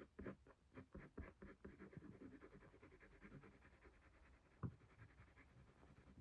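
Graphite pencil scratching on paper in short, quick flicking strokes, about four or five a second, as fur is drawn in; faint, with one slightly sharper tap a little past halfway.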